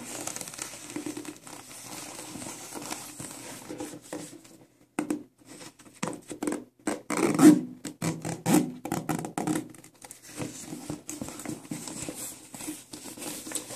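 Ankle boots handled on a tiled floor: the rubbing and scratching of the boot against the tile and in the hands, then a run of quick taps and knocks from the sole and heel on the tile in the middle seconds.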